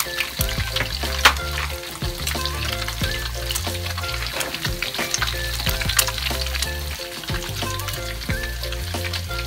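Duck eggs frying in hot oil in an aluminium wok with fried garlic: a steady sizzle with a constant crackle of small oil spatters. Background music with a stepping bass line plays under it.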